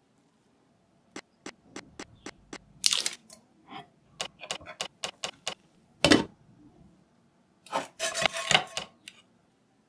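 Kitchen handling sounds: a run of light clicks and taps, a heavier knock about six seconds in, then a short clatter and scrape near the end as toasted bread discs slide off a nonstick pan onto a plate.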